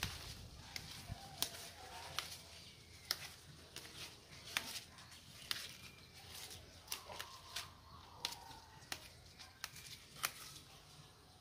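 Fresh leaves being snapped off their stems by hand: a string of small, sharp, irregular snaps, about one or two a second, with a faint rustle of foliage.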